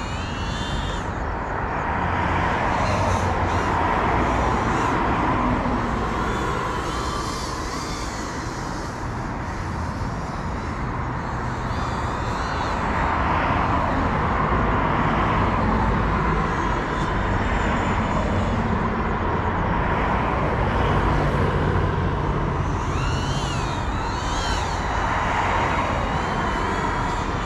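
GEPRC Cinelog 35 cinewhoop quadcopter flying, the whine of its ducted propellers rising and falling in pitch again and again as the throttle changes, over a steady low rumble.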